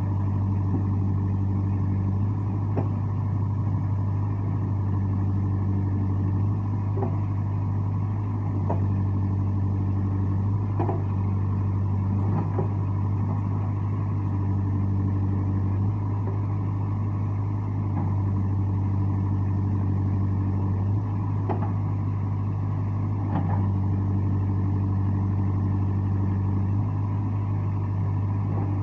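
JCB 3CX backhoe loader's diesel engine running steadily, its note shifting every few seconds as the load changes, with scattered sharp knocks.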